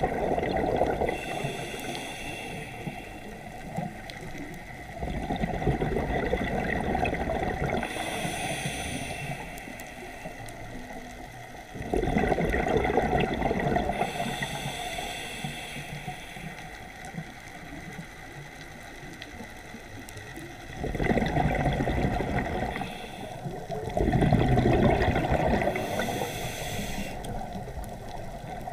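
Scuba diver breathing through a regulator underwater: a short hiss on each inhale, then a long rush of exhaled bubbles, repeating a few times at uneven intervals.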